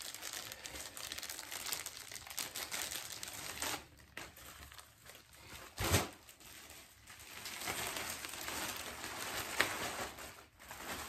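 Thin plastic rain poncho crinkling as it is pulled from its packet and unfolded, with one sharp, loud flap about six seconds in as it is shaken open.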